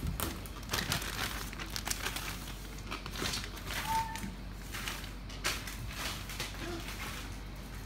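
Scattered light clicks, taps and crinkling as small plastic toys and items are handled.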